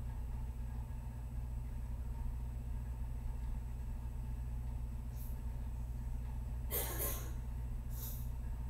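A steady low hum, with three short hissing noises in the second half, the middle one the longest.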